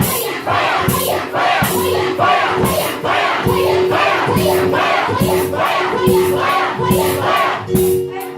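A crowd of voices chanting a short shout in unison, in a steady rhythm of about one shout every second, over music with a held note.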